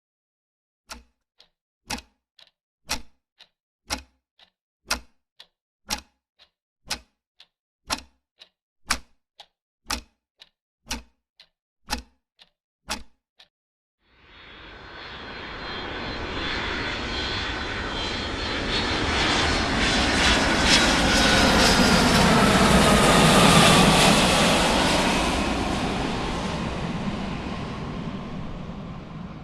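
Regular sharp ticks, about two a second alternating loud and soft, for roughly the first half. Then a large aircraft flies over: its engine noise swells to a peak and fades away, with a whine that slowly falls in pitch as it passes.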